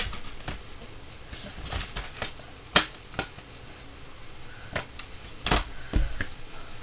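Irregular sharp clicks and taps from handling a trading card in a clear plastic sleeve, about ten in all, the sharpest a little under three seconds in.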